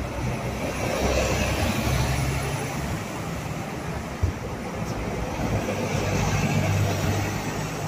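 Hong Kong double-decker tram standing at a stop: a steady low hum with street traffic noise around it, and one sharp click about four seconds in.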